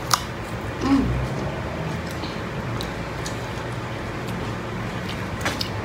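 A sharp bite into a raw green eggplant, then chewing with scattered small wet clicks and smacks.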